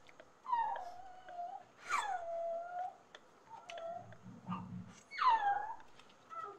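A dog whining, about five drawn-out whimpers that each start high and slide down in pitch.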